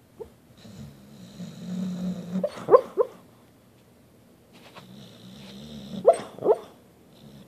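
Sleeping dog barking in a dream: a low growl builds up, then two short yipping barks about three seconds in, and another low growl with two more yips near the end.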